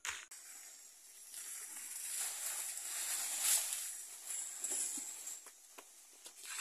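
Rustling of leaves and plant stems as a banana plant is handled, swelling to its loudest about halfway through and then easing, over a steady high hiss, with a few light clicks near the end.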